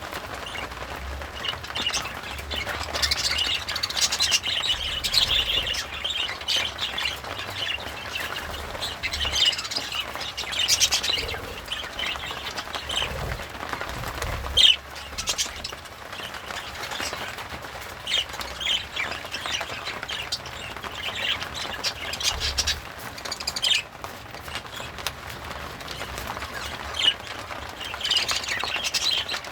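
Budgerigar chattering and warbling continuously, a busy stream of quick chirps with a few sharper, louder calls mixed in.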